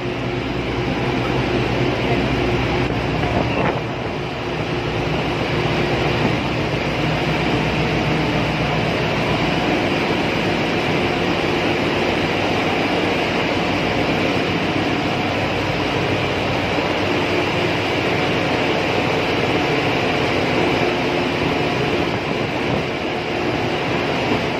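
Steady, loud drone of ship's engine-room machinery: a constant low hum under a wide, even rushing noise.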